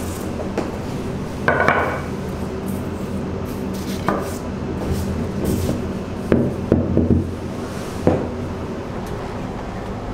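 Scattered knocks and clatter of a plastic flour tub and utensils set down and handled on a marble counter while flour is scattered, with a cluster of several quick knocks about six to seven seconds in. A steady low machine hum runs underneath.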